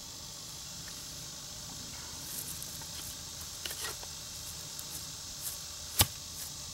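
Steel axe head being test-fitted onto a freshly shaped hickory handle. Light clicks and scrapes come as it slides onto the wood, then one sharp knock about six seconds in as it is tapped down to seat it. A steady hiss of insects runs behind.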